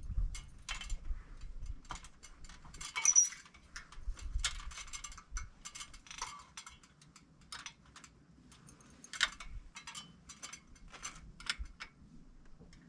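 Irregular light metallic clinks and knocks from a ladder and hardware being handled as someone climbs it, with a few louder knocks.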